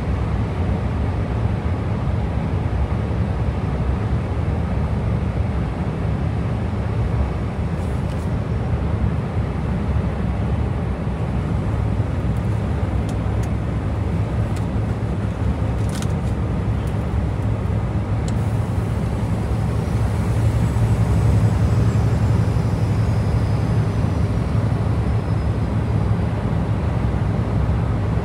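Scania V8 truck driving on the road, its engine and road noise heard as a steady low drone from the cab. A few faint clicks come in the middle.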